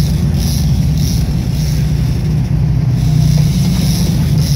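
Boat engines running steadily with the boat under way, a low hum, with water rushing along the hull and wind.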